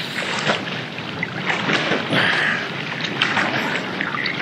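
Water splashing and lapping right at a camera held at the water's surface as a person swims, with irregular splashes from the swimming strokes.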